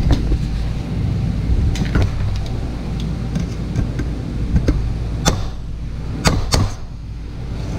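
Hand tools clicking and knocking on the metal housing of an air-conditioner fan motor as it is worked on, with several sharp knocks in the last few seconds, over a steady low hum.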